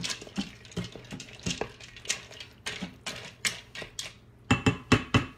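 A spoon stirring chicken, pasta and sauce in an electric pressure cooker's stainless-steel inner pot, scraping and clinking against the metal, with a quick run of louder knocks on the pot near the end.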